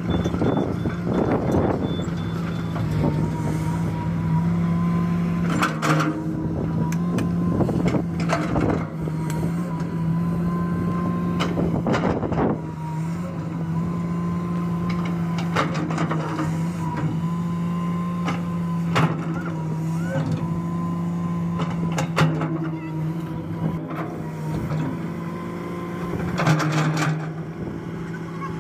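Komatsu PC210 hydraulic excavator's diesel engine running steadily under load while digging, with a steady high whine over the engine note and several sharp knocks and clanks as the bucket works the sand.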